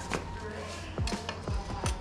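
Background music with a steady beat: a thudding kick drum about twice a second with sharp ticks between.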